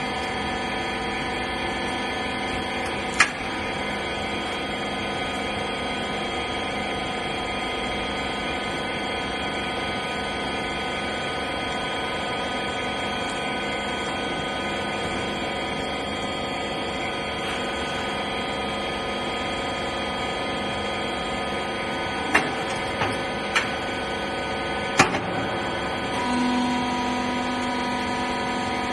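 Rag baler machine running with a steady mechanical hum made of several held tones, with a few sharp knocks about three seconds in and again near the end. Shortly before the end a lower steady tone joins in.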